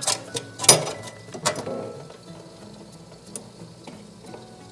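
Plastic zip tie being pulled through its ratchet head to fasten a bracket, with three quick rattling zips in the first second and a half, then quieter handling.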